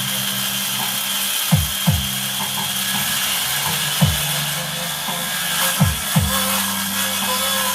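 Bass-heavy music played through a subwoofer box, with a steady bass line and deep drum hits that slide down in pitch every second or two.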